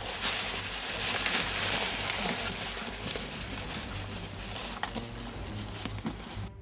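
Footsteps and rustling through forest undergrowth, brushing against leaves and branches, with a few sharp snaps along the way. The sound cuts off abruptly near the end.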